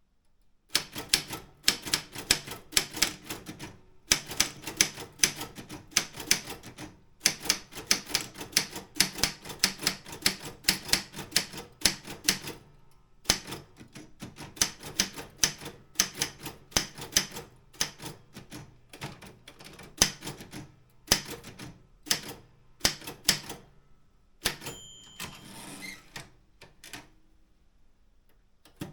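Optima M16 manual typewriter being typed on at a steady pace: rapid sharp keystrokes and typebar strikes with brief pauses. Near the end the typing stops, and there is a short ringing tone followed by a longer rasping sound.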